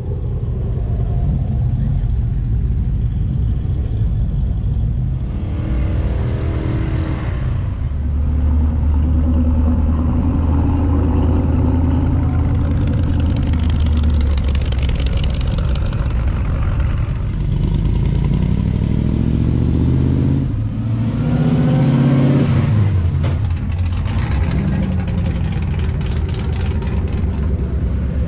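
Car engines running, with several revs where the engine note climbs in pitch, the clearest about two-thirds of the way through.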